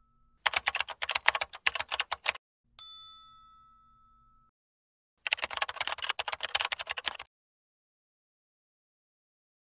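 Typing sound effect: two bursts of rapid key clicks, each about two seconds long, with a single bell ding between them that rings out and fades. It goes silent for the last couple of seconds.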